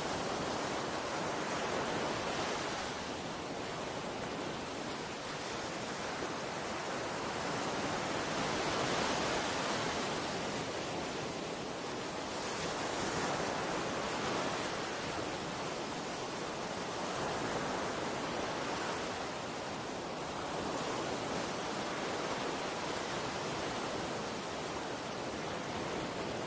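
Sea waves washing in a steady rushing wash that swells and eases every few seconds.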